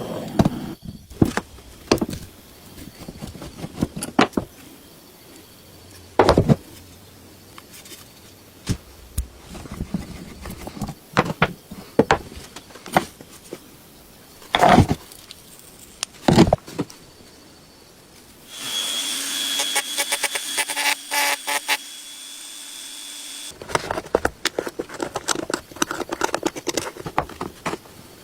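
Workshop handling noises: scattered sharp clicks and knocks of tools and parts being handled, with about five seconds of a small power tool's steady high whine and hiss about two-thirds of the way through.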